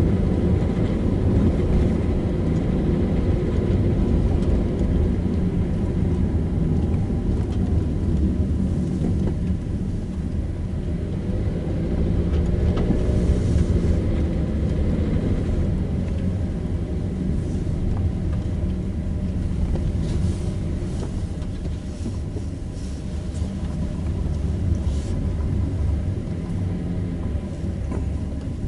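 A car driving along a road: a steady low rumble of engine and tyres, with the engine note bending up and down around the middle.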